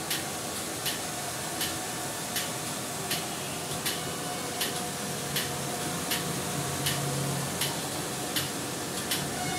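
Reverse-osmosis water purification plant running: a steady hiss and hum, with a sharp tick repeating evenly about every three-quarters of a second.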